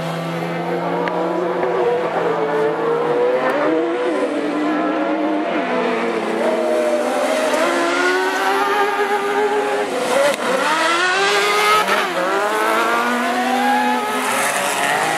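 Several autocross superbuggies' engines racing in a pack on a dirt track. Many overlapping engines rev hard, their pitch climbing and dropping as they accelerate and lift. They are loudest as the pack comes close about two-thirds of the way through.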